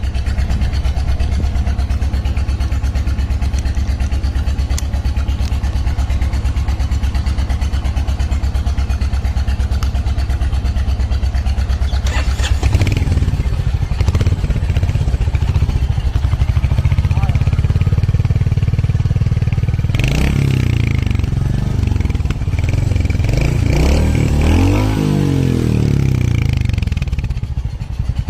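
Royal Enfield Hunter 350's single-cylinder engine idling with a steady low thump through its exhaust. About halfway through the note changes and the throttle is blipped, with several rises and falls in pitch near the end.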